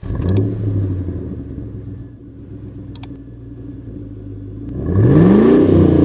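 Car engine sound effect idling, then revving once about five seconds in, its pitch rising and falling back.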